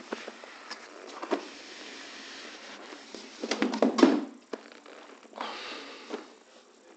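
Cardboard rubbing and scraping as a product box is slid and lifted out of a cardboard shipping carton, with a cluster of knocks and scuffs about four seconds in.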